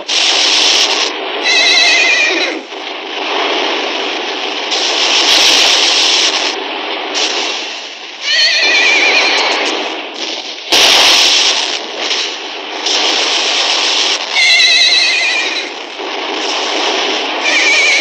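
Horses neighing four times, shrill wavering whinnies, over a dense, noisy battle din. A sharp blast cuts through about eleven seconds in, with a smaller one about halfway through.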